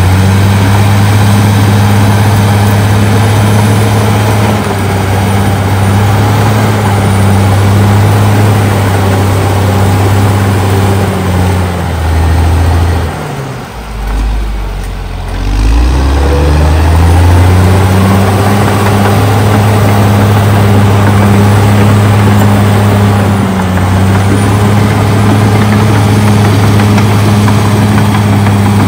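Caterpillar D6R XL bulldozer's diesel engine running under load as the blade pushes through brush, a loud steady drone. About halfway through, the engine note drops away for a couple of seconds and then climbs back up.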